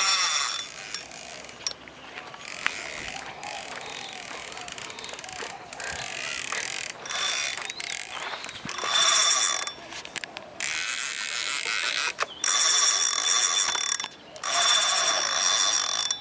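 Fishing reel's ratchet clicking fast in bursts of a second or two while a hooked fish is being played.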